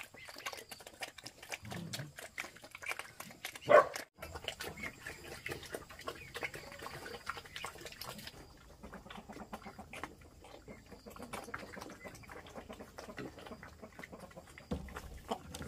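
Two young black pigs eating wet slop from a metal basin: a dense run of rapid wet smacking and slurping clicks, with one brief louder sound about four seconds in.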